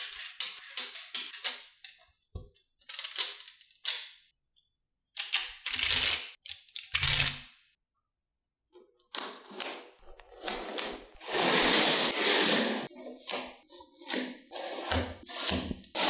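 Small neodymium magnetic balls clicking as they snap together, in quick runs of sharp clicks, with longer stretches of rattling and clattering as many balls shift and slide against each other on the tabletop. There is a short silent gap about eight seconds in.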